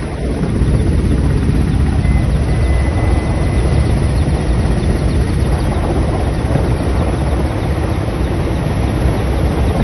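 Ka-52 attack helicopter in flight, its coaxial rotors and engines giving a loud, steady, rapid beating rumble.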